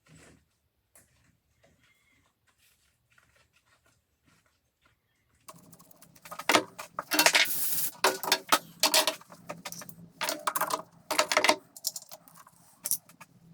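Faint scattered clicks for about five seconds, then a workshop machine starts running with a steady hum under loud, irregular metallic rattling and scraping.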